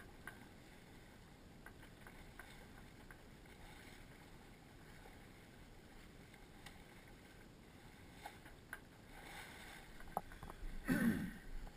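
Faint, steady wash of water and wind around a small sailboat under way, with a few light clicks. Near the end comes a short, louder sound falling in pitch.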